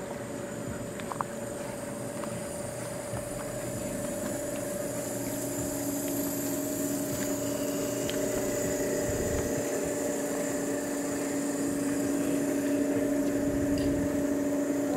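Steady hum of a motor with two held tones, growing gradually louder, the lower tone joining about five seconds in; a brief click about a second in.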